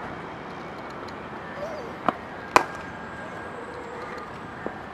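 Sharp knocks of a cricket ball and bat during net practice: two about half a second apart a couple of seconds in, the second the loudest, and a fainter one near the end.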